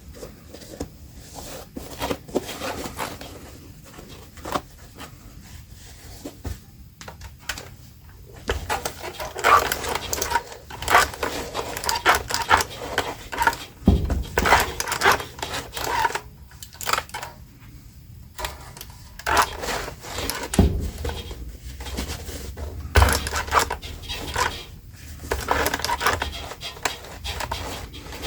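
Fabric and sewing tools being handled on a work table: irregular rustling of denim and fabric with scattered clicks and taps, busier through the middle.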